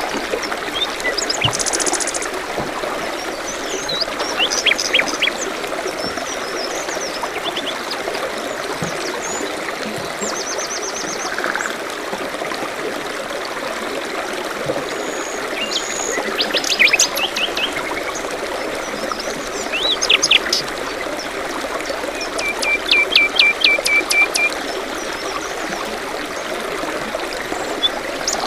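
Forest stream running steadily, with various songbirds calling over it: scattered chirps and short trills, including a rapid run of repeated notes near the end.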